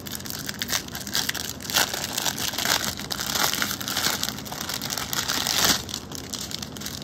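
Small clear plastic zip-top bags of diamond-painting drills crinkling as they are handled, on and off, loudest just before six seconds in.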